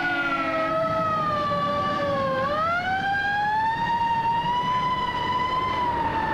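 Fire truck siren wailing: its pitch sags slowly, then rises again a little over two seconds in and holds high, over the rumble of the truck. A steady lower tone sounds alongside it in the first second.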